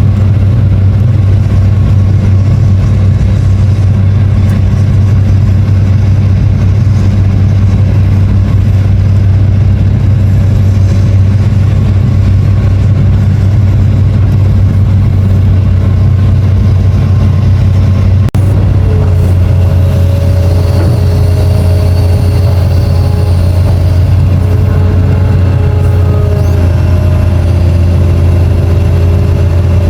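Long-reach excavator's diesel engine running with a steady, loud low drone. About two-thirds of the way through there is a brief dropout, after which a higher steady whine joins the drone.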